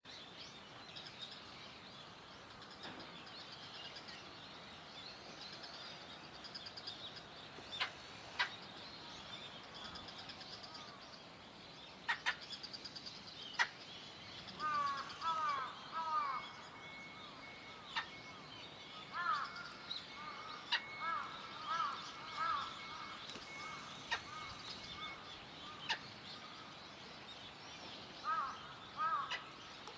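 Black-headed gulls calling: a continuous high chatter of many birds, and from about halfway a run of louder, short arched calls repeated in twos and threes. A few sharp clicks stand out along the way.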